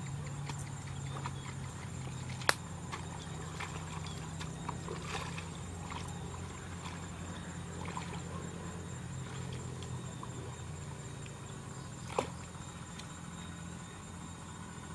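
Hoe chopping into the wet mud of a stream bank: scattered dull knocks, with two sharp, loud strikes about two and a half seconds in and again near twelve seconds. A steady low hum runs underneath.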